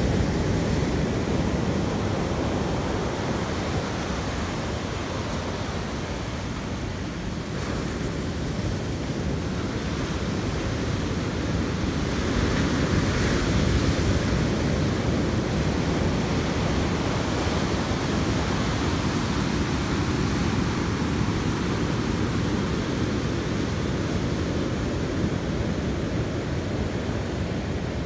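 Ocean surf breaking and washing up a sand beach: a steady rush of waves that swells a little around the middle.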